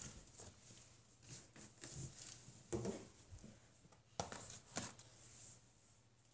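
Faint handling noises close to the microphone: soft rustles and a few light knocks, the clearest about three and four seconds in.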